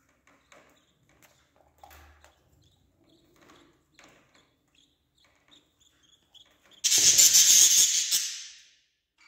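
Budgerigars in a nest box: faint scratching ticks and a few short high chirps. About seven seconds in comes a sudden loud, harsh hiss that lasts about two seconds and fades out.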